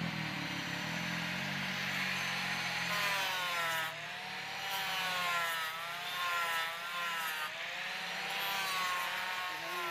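Handheld electric angle grinder with an abrasive disc grinding a steel knife blade forged from rebar: a steady grinding hiss over the motor's whine, which dips and rises in pitch as the disc is pressed onto the blade and eased off.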